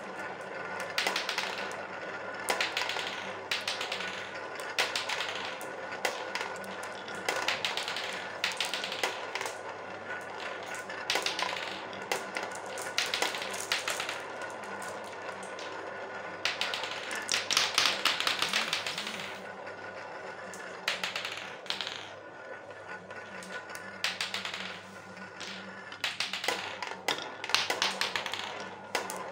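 Marbles rolling round a plastic funnel bowl: a steady rolling rattle with dense clicks as they knock into each other and the plastic, swelling in louder flurries as more marbles come in, the loudest a little past halfway.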